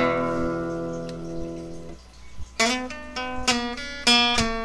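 Background music on acoustic guitar: a strummed chord rings and fades, then strumming starts again about halfway through.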